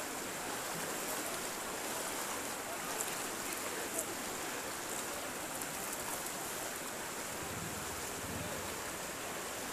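Floodwater rushing across a road, a steady rush of water, with faint voices of people around and two brief knocks about three and four seconds in.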